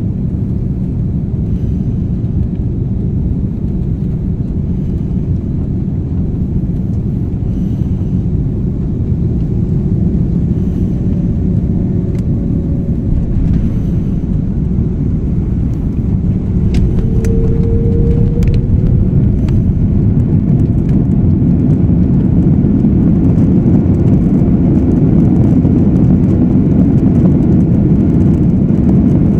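Cabin sound of an Airbus A330-300 landing: a steady rumble of engines and airflow on short final. It grows louder about halfway through, as the aircraft touches down and rolls out with its spoilers raised.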